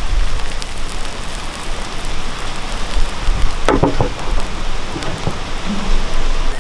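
Beaten egg sizzling in hot melted butter in a non-stick pan as it sets into an omelette, a steady loud crackling hiss. A couple of short knocks come a little past halfway.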